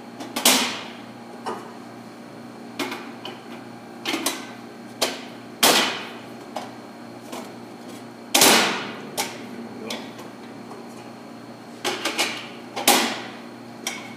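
Plugs of a Dutchess BMIH-9SQ dough divider head being tapped by hand into the head's knife grid, snapping into place. Irregular sharp knocks with a short ring, the loudest about eight seconds in.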